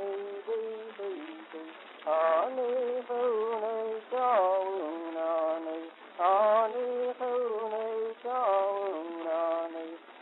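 Music with wordless singing: a voice sings phrases that each open with a quick upward swoop into held, steady notes.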